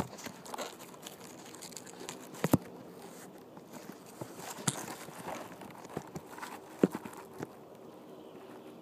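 Handling noise from fingers gripping and rubbing over a phone's microphone: scattered knocks and scrapes, the loudest about two and a half seconds in and again near seven seconds.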